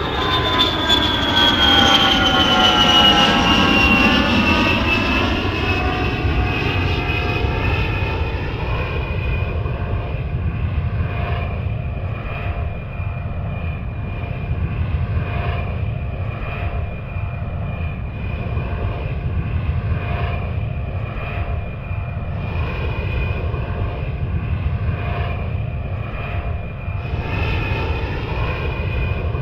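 Airplane engines running: a high whine falling in pitch over the first five or six seconds, then holding steady over a constant deep rumble.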